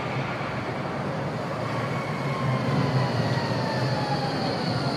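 Low-floor Glattalbahn tram of the Bombardier Cobra type pulling into a stop: a rolling rumble with the whine of its electric drive falling slowly in pitch as it slows, and a high steady squeal setting in about halfway through.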